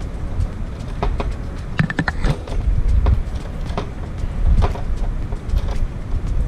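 Scattered sharp clicks and knocks of plastic and metal from an Epson L360 inkjet printer being taken apart with a screwdriver, with a quick cluster about two seconds in and more near the end, over a steady low rumble.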